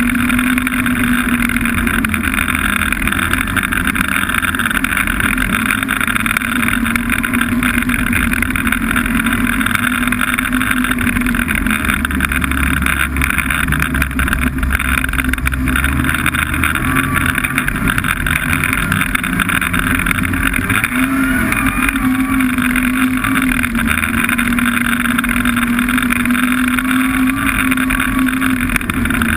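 Snowmobile engine running steadily while riding. Its pitch eases off and wavers partway through, then picks back up.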